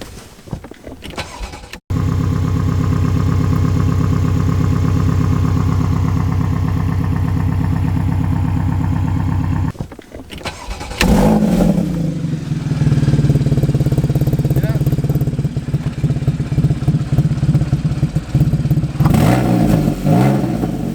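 Porsche Boxster S 981's 3.4-litre flat-six idling with a rough, rapid pulsing from an exhaust leak, a horrible noise that the owners take for the exhaust blowing at the manifold; corroded exhaust bolts are the cause. About halfway through, after a short break, the engine runs louder with the revs rising and falling.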